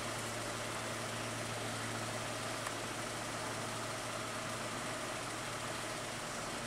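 A 1545 rice combine harvester running steadily while cutting paddy: a steady low engine hum under an even hiss.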